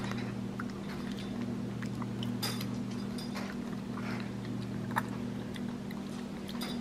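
A steady low hum, with faint scattered clicks and smacks of a capuchin monkey licking applesauce from a bowl.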